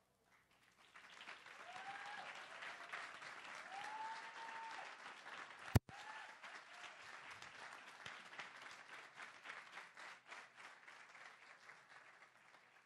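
Audience applauding, swelling about a second in and thinning out toward the end, with a few short calls over the clapping. A single sharp click near the middle is the loudest sound.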